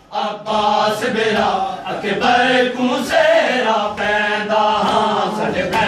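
A group of men chanting a Shia mourning lament (noha) together, the sung lines rising and falling without a break, with a couple of sharp slaps of chest-beating (matam).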